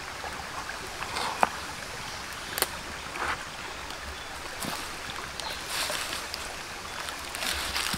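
Shallow stream running steadily, with a few sharp clicks and light rustles over it, the loudest clicks about a second and a half and two and a half seconds in.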